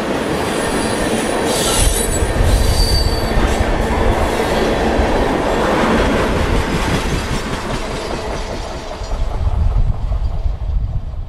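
Freight train tank cars rolling past on steel rails: a steady, loud rumble of wheels on track, with brief high-pitched wheel squeals in the first few seconds. The last car goes by about halfway through, and the rumble carries on as the train moves away.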